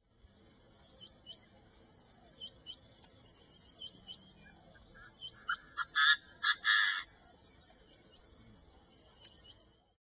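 Male black francolin calling: a few short notes about five seconds in build into a loud, harsh phrase of several notes lasting about a second. A steady high insect drone and faint chirps run underneath.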